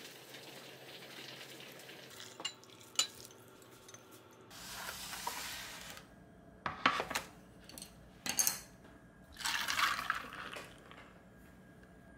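Tableware being handled: a few sharp knocks and clinks of dishes and a glass set down on a wooden serving tray, with two short spells of liquid being poured, about four seconds in and again near the end.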